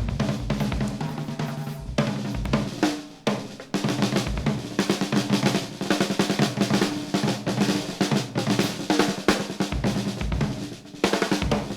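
Jazz drum kit solo: fast snare-drum rolls and rimshots over bass-drum kicks, with hi-hat and cymbals, the loudness dipping briefly a couple of times between flurries.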